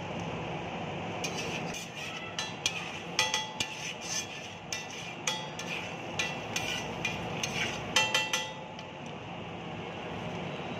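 Metal spatula chopping and scraping an egg mixture on a flat steel griddle: an irregular run of ringing metallic clinks starting about a second in and stopping after about eight seconds, over steady background noise.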